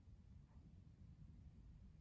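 Near silence: faint low room rumble.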